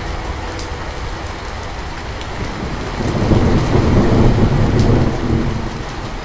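Steady rain falling, with a low roll of thunder that swells about halfway through and fades near the end.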